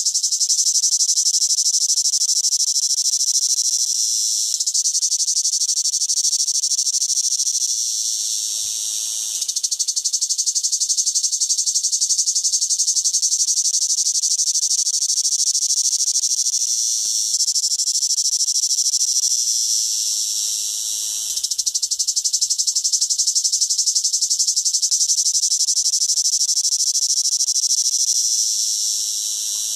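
Cicada singing: a loud, continuous high-pitched buzz that sags briefly every ten seconds or so before swelling back.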